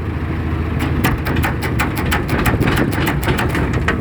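GAZ-3309 truck's diesel engine running under way, with a rapid regular ticking, about six clicks a second, setting in about a second in. It is the kind of driveshaft tick the owner blames on a worn U-joint cross or the centre support bearing.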